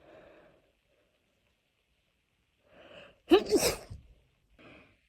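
A young woman's wet sneeze: a soft breath, then a short breathy build-up and one loud, sudden sneeze about three seconds in, followed by a quick small breath.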